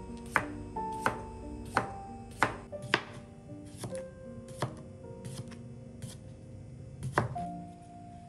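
Chef's knife slicing a cucumber on a plastic cutting board, a sharp tap each time the blade meets the board, about eight cuts with a pause of a couple of seconds before the last. Soft background music plays underneath.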